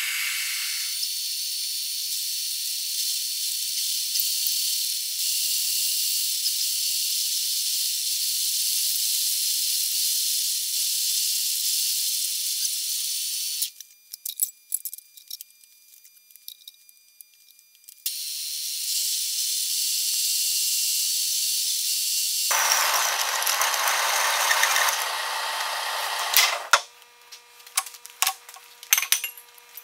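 Hole saw in a milling machine cutting through rectangular steel tubing: a steady, high hissing cut that stops about halfway, starts again a few seconds later and stops near the end. Scattered light clicks and clinks follow each stop.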